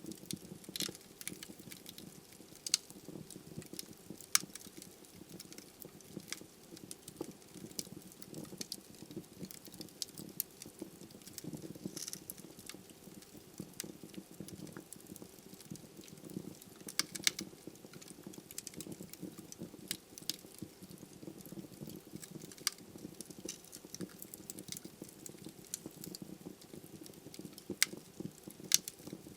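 Wood fire burning in a fireplace: a steady low rush of flame with frequent irregular crackles from the burning logs, and a few sharper, louder pops.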